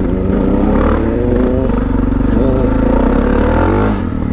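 Suzuki DR650's big single-cylinder four-stroke engine pulling under throttle through an FMF Power Bomb header and Q4 slip-on exhaust, heard from on the bike. Near the end the throttle comes off and the revs drop to a slower run where the single's separate firing pulses come through.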